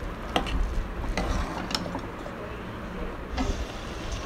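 A metal ladle stirring thick, pressure-cooked rice and milk in a metal pressure cooker, scraping through it and clinking against the pot about four times.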